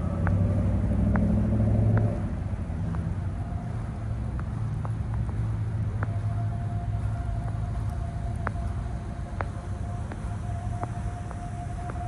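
A motor vehicle driving past on the snowy road, its engine and tyres loud for the first two seconds, then fading to a steady low traffic rumble. A faint steady tone joins about three seconds in, and faint light clicks come here and there.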